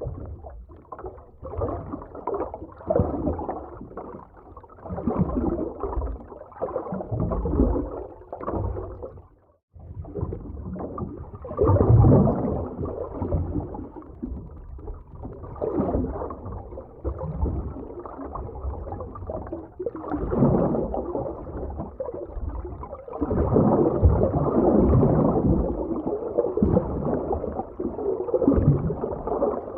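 Muffled underwater ocean ambience: low gurgling and surging water that swells and fades in waves. It cuts out for a moment about ten seconds in.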